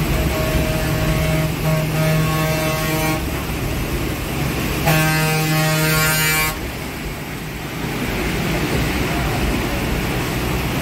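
A vehicle horn sounding two long blasts, the first with a short break in it, the second starting about five seconds in, over the steady noise of heavy rain and the bus running.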